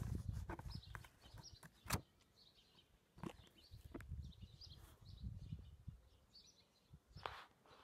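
Low rumbling handling noise and a few sharp clicks from a phone being moved about, with small birds chirping faintly and repeatedly in the background.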